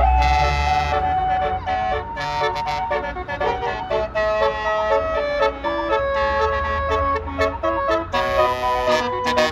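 Bus telolet horn (multi-tone musical air horn) playing a melody of stepped notes, some held about a second and others quick, with a bus engine rumbling underneath at first.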